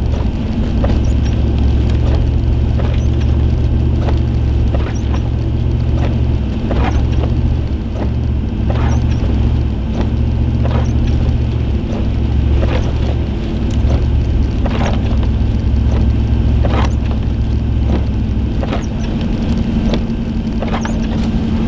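Car driving on a snow-covered road, heard from inside the cabin: a steady low engine and road rumble, with short sharp squeaks or knocks about every one to two seconds.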